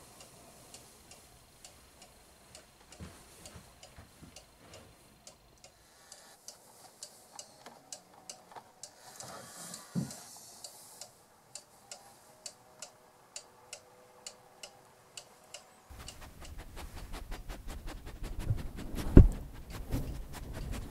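Pendulum cuckoo clock ticking steadily. Near the end come several low thumps and rubbing as a dog's nose bumps the furry windscreen of the recorder.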